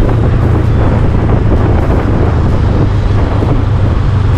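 Yamaha motorcycle engine running at steady cruising speed, mixed with wind rushing over the microphone of a helmet-mounted action camera.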